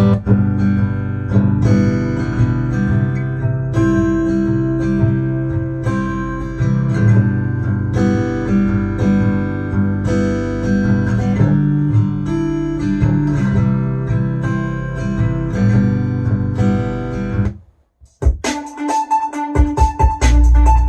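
Music with strummed acoustic guitar played through a portable Bluetooth speaker at a test volume. Near the end it cuts out for about half a second and a different track starts, with heavy deep bass.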